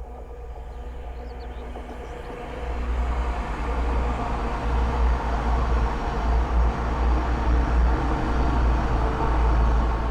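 Class 222 Meridian diesel multiple unit approaching and passing at speed: a steady diesel engine drone over rail and wheel noise, swelling about two and a half seconds in and staying loud.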